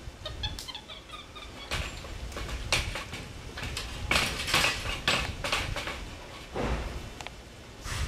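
Caged capuchin monkey: a quick run of short, high squeaks about half a second in, then scattered rustling and rattling noises, loudest about four to five seconds in.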